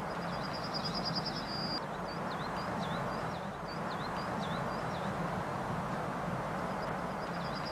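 A songbird singing: a fast high trill ending in a held note, then a run of short swooping notes, with the trill coming again near the end. Under it runs a steady rushing background noise.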